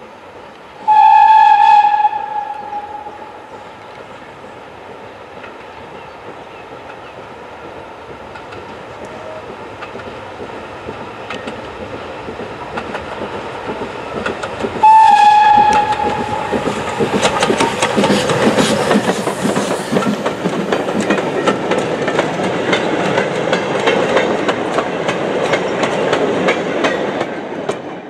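Steam tank locomotive sounding its whistle twice, a short blast about a second in and another about halfway, then passing close with a train of wagons: rapid exhaust beats and wheels clattering over the rail joints, growing louder as it draws near.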